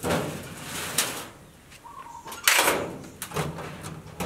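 Doors of a tall cupboard with a mirrored door being swung and shut, with a sharp click about a second in, then a louder knock about two and a half seconds in followed by a few small clicks.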